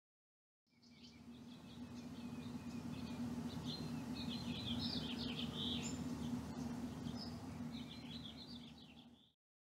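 Birds chirping over a steady low hum and background noise. The sound fades in about a second in and fades out near the end.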